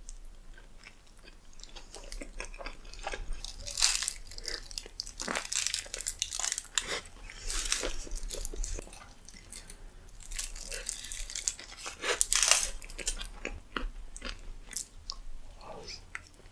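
Close-miked eating of a large burrito: bites and wet, crunchy chewing with lip smacks, coming in clusters of crackling clicks that are loudest about four, eight and twelve seconds in.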